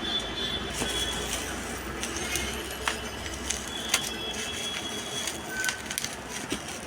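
Steady low rumble of background traffic, with scattered sharp clicks and rustling from handling.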